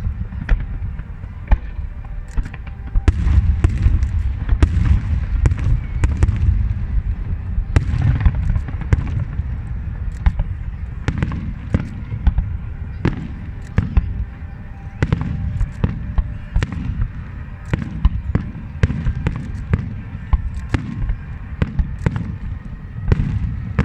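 Fireworks display: a dense barrage of sharp bangs and crackles, several a second, over a continuous low rumble of bursting shells.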